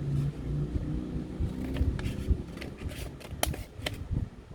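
Hands working at a stuck blind-bag fidget pack, rustling and scraping with several sharp clicks, the loudest about three and a half seconds in, as the pack resists opening.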